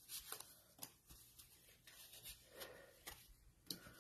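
Faint rustling and a few light taps of cardstock tags being picked up and laid down by hand as they are sorted.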